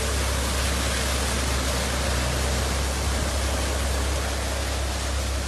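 Steady rushing noise of heavy rain and tyres in standing floodwater, heard from inside a moving car, over a constant low rumble.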